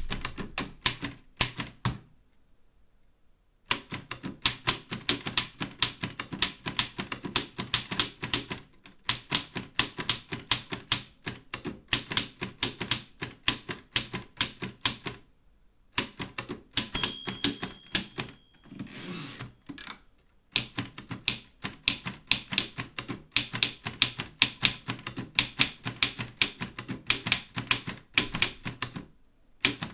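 Erika 5 manual typewriter being typed on at a brisk pace: fast runs of sharp key strikes broken by short pauses. Partway through, the margin bell rings once and the carriage is returned with a long ratcheting sweep, then typing starts again.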